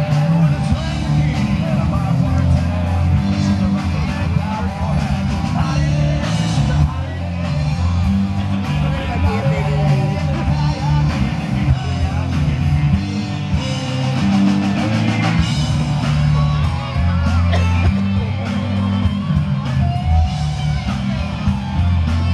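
Rock music with a singer, guitar and a heavy, steady bass line, with crowd voices underneath.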